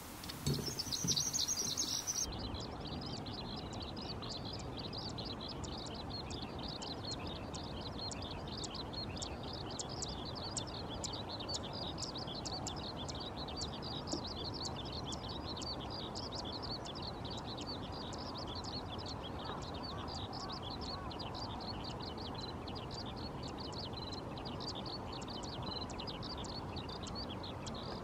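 Eurasian skylark (Japanese subspecies, Alauda arvensis japonica) singing: a long, unbroken stream of rapid high chirps, trills and whistles, louder for the first couple of seconds.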